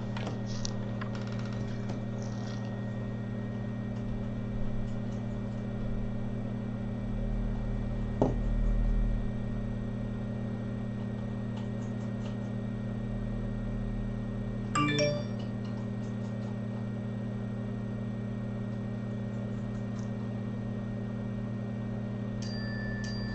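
Steady electrical hum from the micro-soldering bench equipment, with a few faint tool clicks and a short high tone near the end.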